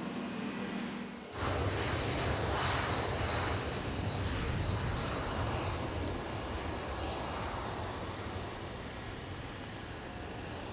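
A jet airliner's engines at takeoff power on the runway, a loud rumble that slowly fades. A steady hum comes before it and cuts off sharply about a second in.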